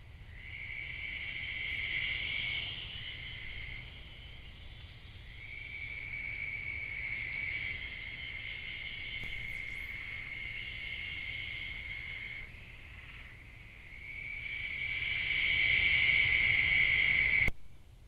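Night insects trilling in a steady high drone that swells and fades in long stretches, louder near the end before cutting off suddenly.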